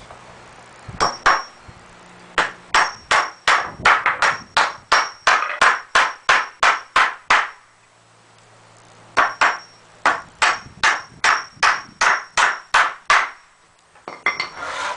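Hand hammer driving nails into pallet wood, struck at about three blows a second with a faint metallic ring, in two runs split by a short pause midway.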